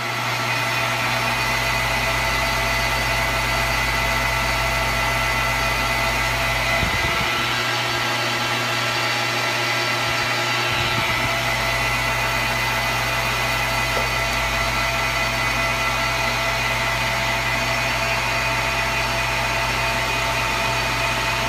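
Metal lathe running at a steady speed while a boring bar cuts the bore of a hard-anodized aluminium ring: a constant motor hum with a steady high whine over it.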